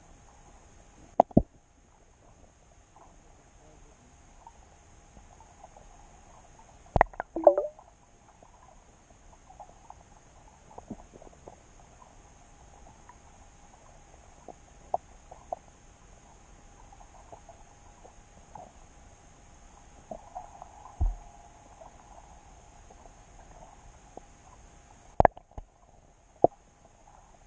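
Underwater sound picked up by a submerged camera: a faint steady hum with scattered sharp clicks and knocks, a cluster of them around seven seconds in, a dull low thump a little past twenty seconds, and two more clicks near the end.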